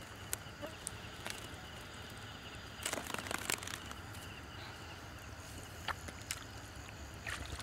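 Rustling and sharp clicks of hands working a woven plastic sack, loudest in a short cluster about three seconds in, over a steady chirping chorus of night insects.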